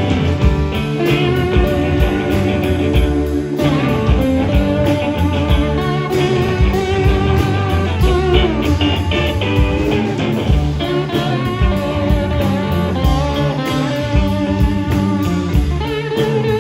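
Electric guitar played live through a miked combo amplifier: an instrumental rock passage of lead notes that bend and slide, over a steady pulse.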